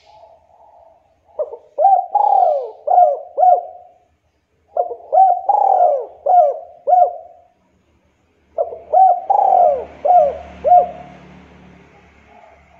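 Local Javan spotted dove cooing in a clear, sharp voice: three phrases, each a string of about five short coos, a second or so apart. A faint rushing noise lies under the third phrase.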